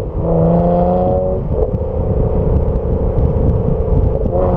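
BMW 335i's turbocharged 3.0-litre straight-six, fitted with an AC Schnitzer rear silencer and stock catalytic converters, pulling under acceleration on the move. The note climbs at first, breaks briefly about a second and a half in, holds steady, then breaks again near the end.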